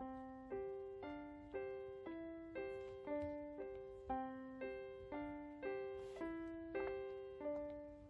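Background music: a gentle melody of single struck notes, about two a second, each fading out before the next.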